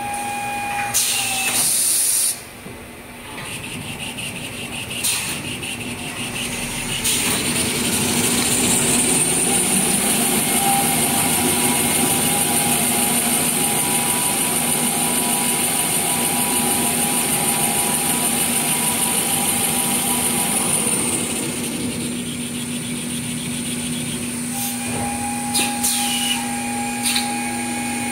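Kitchen towel paper rewinding machine running with a steady hum and hiss. It grows louder about seven seconds in, holds for some thirteen seconds, then eases back, with sharp knocks near the start and near the end.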